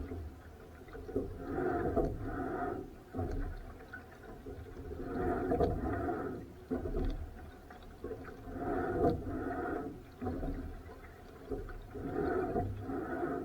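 Rowing strokes: oars pulling through water with a gurgling swish on each stroke, four strokes about three and a half seconds apart, over a steady low rumble.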